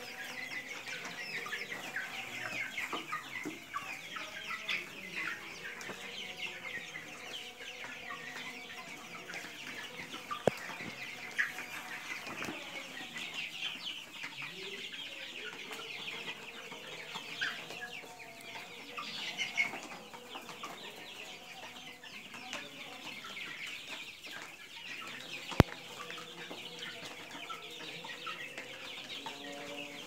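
A flock of young desi chickens clucking and chirping continuously, many birds calling at once. Two sharp clicks cut through, one about a third of the way in and a louder one near the end.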